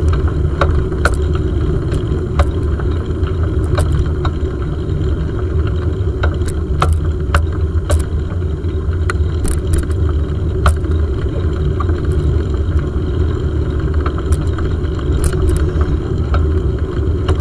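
Bicycle riding on a paved path, heard through a handlebar-mounted camera: a steady low rumble from the ride, with frequent sharp clicks and rattles.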